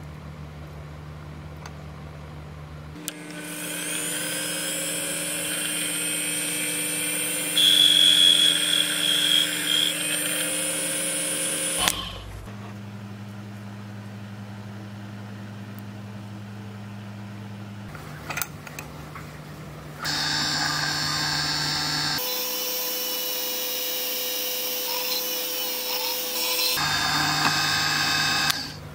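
Small bench drill press running, with a steady motor whine. Twice it drills for several seconds at a time into a small plastic part held in a vise, which brings in a louder, higher whine.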